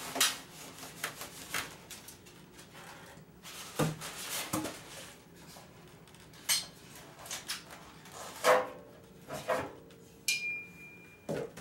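Foam packing blocks and metal parts being handled and lifted out of the steel barrel of a pellet smoker: scattered knocks, clinks and rubbing, with a short squeak a little after ten seconds in.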